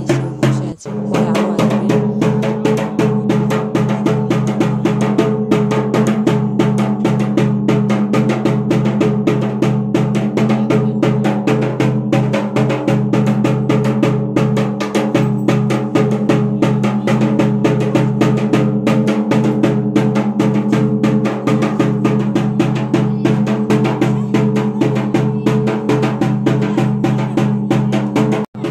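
Fast, steady drumming with a sustained droning tone underneath, dropping out briefly about a second in and again near the end.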